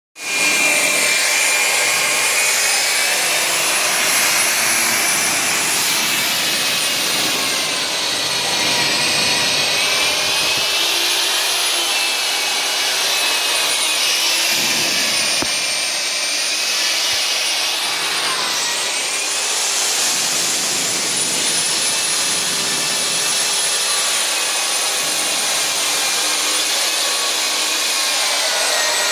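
Hilti DD 200 diamond core drill running steadily with a 252 mm core bit, a continuous grinding noise with a high whine that drifts slightly up and down in pitch.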